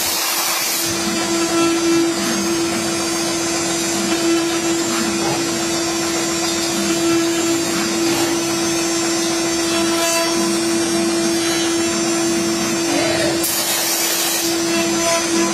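CNC router spindle running with a steady whine while the cutter mills acrylic, over a continuous rushing noise. Brief louder hissing comes in near the start and again near the end.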